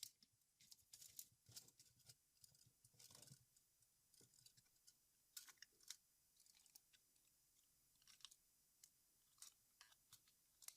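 Near silence broken by faint, scattered clicks and light scraping as a tape measure is handled, its metal blade being wound back onto the coil spring inside the housing.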